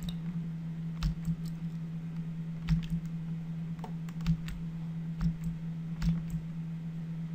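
Computer mouse clicking while falloff-direction options are picked from a dropdown menu: about a dozen short, sharp clicks at uneven intervals over a steady low hum.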